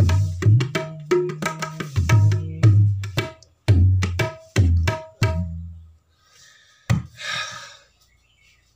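Tabla being played: quick, sharp ringing strokes on the small right-hand drum over deep bass strokes on the larger drum. The playing stops about six seconds in, followed by a lone stroke and a brief rustle.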